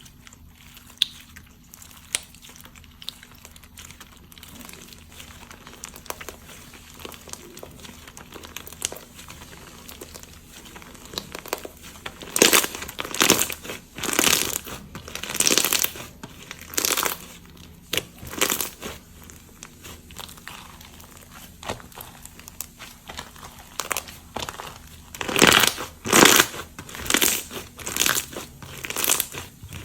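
Perler bead slime being handled, making crinkly, crackling clicks as the plastic beads in it shift and pop. Faint scattered clicks at first, then a run of louder crackles about halfway through and another near the end.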